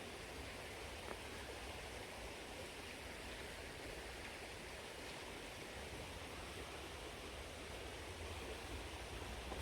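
A waterfall's water rushing steadily, faint and even.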